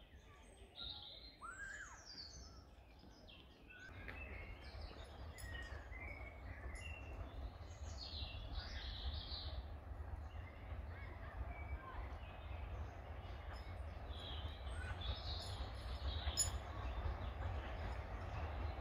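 Woodland birds chirping and singing, joined about four seconds in by a low rumble that slowly grows louder: a small steam train approaching along the line.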